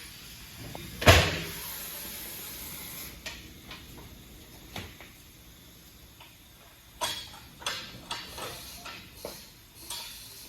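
One loud thump about a second in, like a door or heavy panel shutting, followed later by a run of lighter knocks and clicks.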